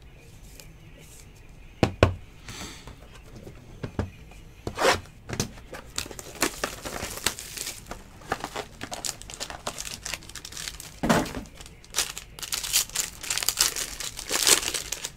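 Foil trading-card pack wrapper crinkling and tearing as it is opened and the cards are slid out, densest near the end. A single sharp knock sounds about two seconds in.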